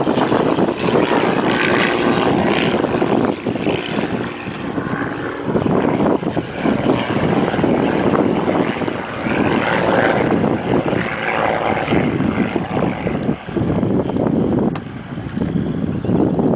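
Single-engine propeller stunt plane flying, its engine and propeller running loudly with the level swelling and dipping a few times.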